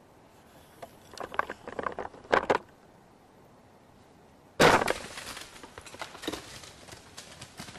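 Dry leaves crunching and rustling in short crackly spells, then a sudden loud crash of movement about four and a half seconds in, with irregular crunching after it.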